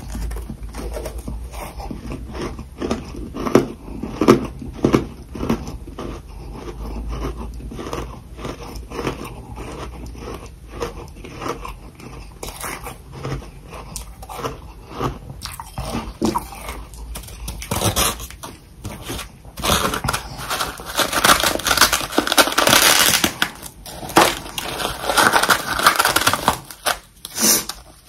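A person biting and chewing freezer frost close to the microphone: a steady run of crisp crunches that thickens into a dense, loud stretch of crunching in the last third.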